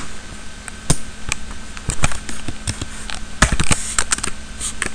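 Typing on a computer keyboard: irregular keystroke clicks, with a quick run of keys about three and a half seconds in, over a faint steady hum.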